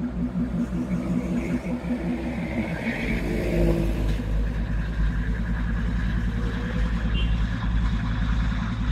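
NDM6 narrow-gauge diesel locomotive's engine running as it moves slowly along the track, with a pulsing engine note throughout. A deeper, louder rumble comes in about three seconds in as it takes up power.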